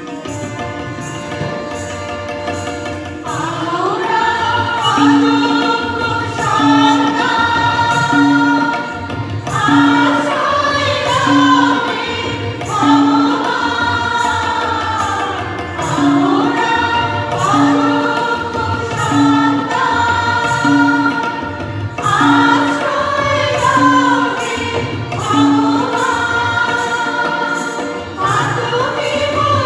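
Devotional song accompanying a liturgical dance: a group of voices sings over instrumental accompaniment, coming in about three seconds in after a short instrumental passage. A short low note repeats about every one and a half seconds under the singing.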